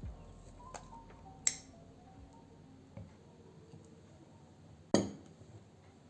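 Dishes or utensils knocking and clinking, two sharp clinks with a short ring about a second and a half in and again near the end, with a softer knock between.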